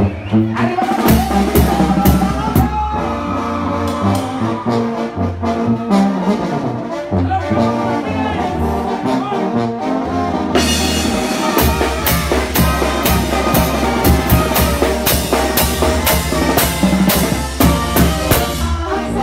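Live band music: brass (trumpets and trombones) playing the tune over a drum kit, with busier cymbal strokes coming in about halfway through.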